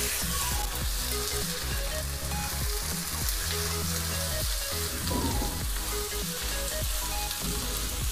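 Sliced onions and ginger-garlic paste sizzling in hot oil in a kadai, stirred and scraped with a wooden spatula. The frying hiss is steady throughout.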